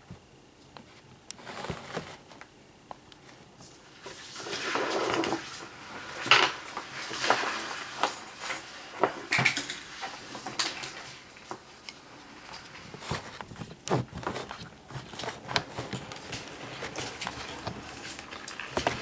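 Irregular clicks, light knocks and rustling of things being handled in a plastic tub, with a stretch of rustling about four seconds in and the sharpest knock a couple of seconds later.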